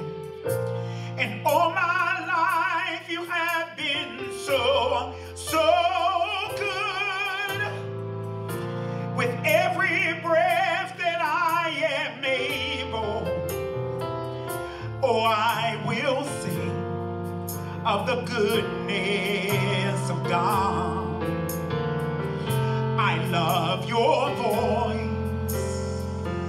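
A man singing a slow gospel solo with strong vibrato and long held notes over sustained keyboard chords.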